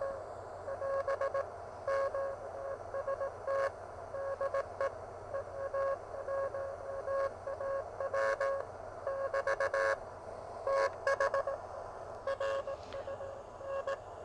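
Morse code (CW) signal heard through a pocket uSDX-clone HF transceiver's speaker: a single tone of about 550 Hz keyed on and off in short and long beeps over a steady hiss of receiver band noise, with scattered brief clicks of static.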